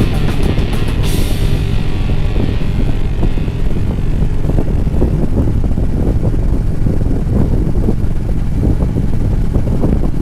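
Harley-Davidson Road Glide's V-twin engine running steadily at cruising speed, with wind noise on the microphone.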